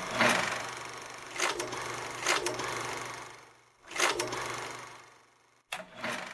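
Film projector sound effect: a steady mechanical whir and clatter with a few louder clicks, fading out and starting again twice.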